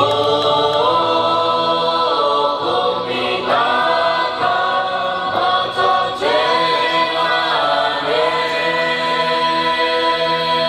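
A group of voices singing together in harmony without instruments, holding long notes that step to a new pitch every second or two.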